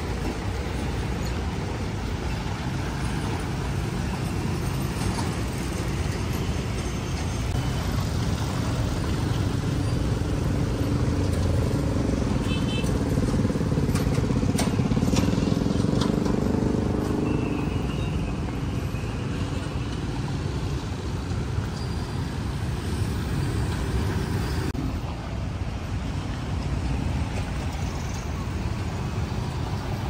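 Road traffic: a steady wash of engines and tyres, with one vehicle's engine growing louder and passing through the middle.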